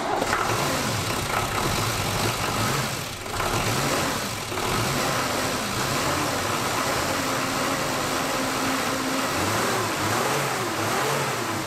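Nissan Patrol 3.3-litre naturally aspirated six-cylinder diesel engine running, its revs rising and falling several times as the throttle is worked.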